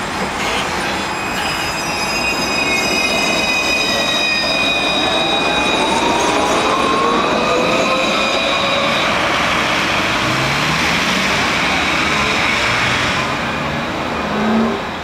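Alstom Citadis 302 low-floor tram pulling away from the stop and passing close by. An electric whine climbs in pitch as it gathers speed, over the steady rolling noise of wheels on rails, with high whining tones that fade out as it leaves.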